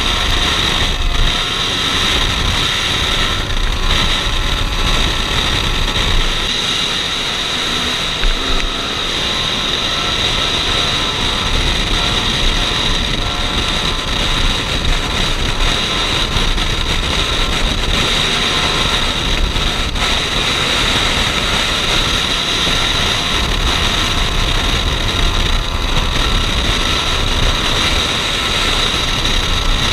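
Single-cylinder dual-sport motorcycle engine running at a steady cruise on pavement, with wind rushing over the microphone.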